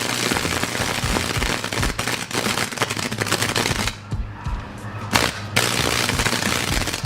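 High-voltage electric current from a microwave oven transformer arcing through a hot dog: a dense, rapid crackling and sizzling that drops out for about a second and a half midway, then resumes.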